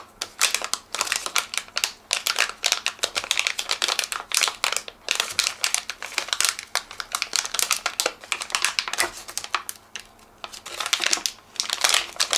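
Metallized anti-static bag crinkling as it is unfolded and opened by hand: a dense, irregular crackle, with short lulls about five and ten seconds in.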